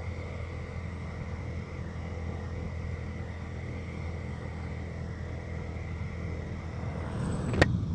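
Motorcycles moving at road speed: a steady low engine hum under wind and road rumble, with one sharp knock near the end.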